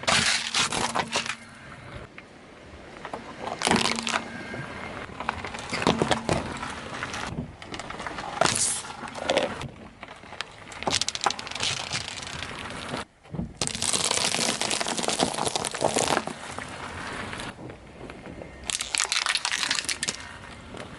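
Objects cracking and crunching as a car tyre rolls over and crushes them, in about seven separate bursts of crackling, the longest lasting a couple of seconds.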